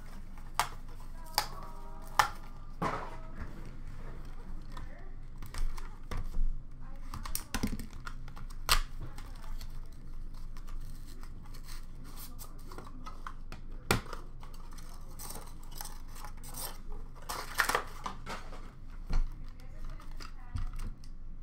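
Hands opening a cardboard hockey card box: cardboard sliding and tearing, packaging rustling, and scattered sharp clicks as plastic card holders are picked up and set down.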